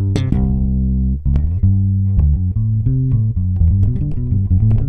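Bass guitar played alone: plucked arpeggio notes, one held for about a second, then a quicker run of single notes, each ringing into the next.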